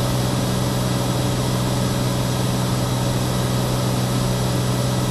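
Steady in-flight drone of a Cirrus SR22's six-cylinder piston engine and propeller: an even low hum that does not change.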